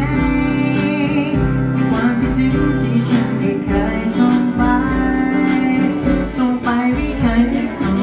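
A live band playing a pop-rock song, with acoustic guitars and a drum beat under a singing voice.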